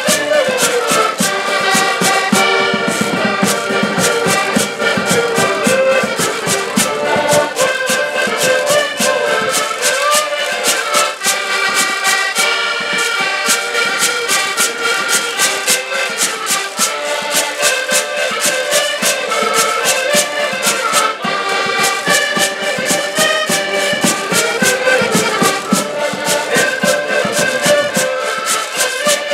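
Portuguese folk ensemble playing a lively tune: several accordions carry the melody in sustained chords, with a small strummed string instrument and hand percussion keeping a fast, even rhythm.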